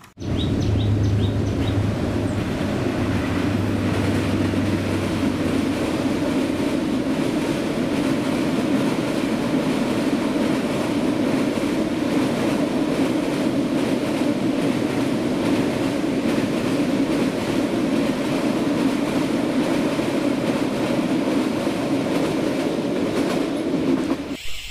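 Freight train of container wagons rolling past, a loud steady rumble of wheels on rails, with a low locomotive hum over the first five seconds. It starts abruptly.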